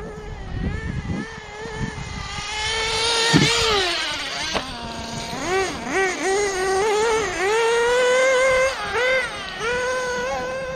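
Small nitro RC car engine (HoBao Hyper VS2) running at high revs and revving up and down under throttle. It eases off about four seconds in, gives a string of quick throttle blips, then holds high revs near the end. The owner feels the engine is tuned a bit rich on the low-speed needle, which dulls its acceleration.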